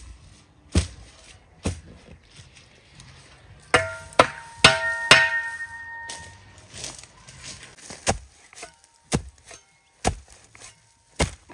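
Steel shovel blade chopping down into saplings and roots in the ground, one sharp blow about every second. A quick flurry of blows in the middle rings out briefly and metallically, as the blade strikes something hard.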